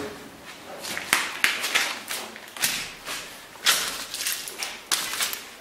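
Footsteps through a floor littered with paper, cardboard and medicine boxes: a series of irregular rustles and crunches.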